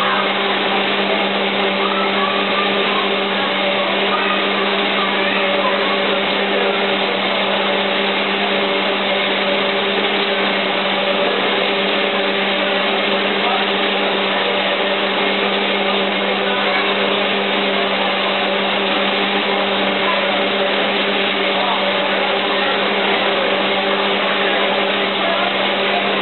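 Taffy-pulling machine running, its motor giving a steady, unbroken hum with a low drone.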